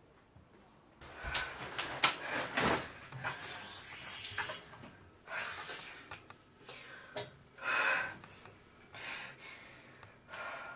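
Bathroom sounds: clicks and knocks of handling, with a tap running briefly about three seconds in.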